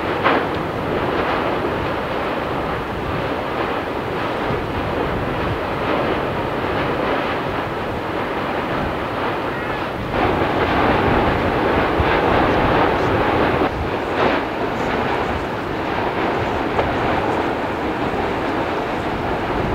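Continuous low rumbling rush from an erupting volcano's lava, with a few brief crackles, growing louder about halfway through.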